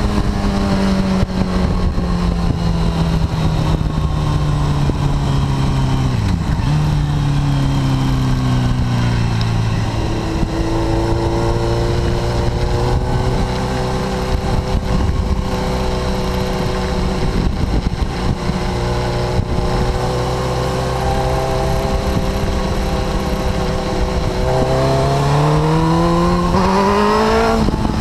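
Suzuki GSX-R1000 K4 inline-four sportbike engine heard onboard at speed, with wind rush throughout. The revs fall, jump up sharply about six seconds in, fall again, then hold fairly steady. Near the end the revs climb hard and drop sharply just before the end.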